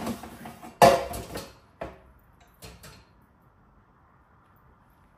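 Kitchen clatter from an air fryer basket and a food container being handled on the counter: one sharp knock with a short ring about a second in, then a few lighter clicks.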